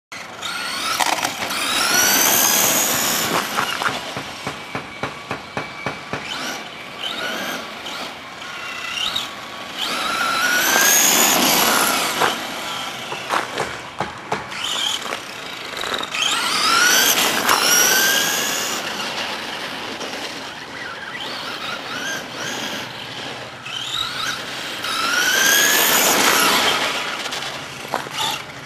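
Brushless electric motor of a Traxxas Stampede RC truck whining as the truck speeds up and slows in repeated runs, the pitch rising and falling with the throttle. Four loud passes stand out, with quicker on-off throttle blips between them.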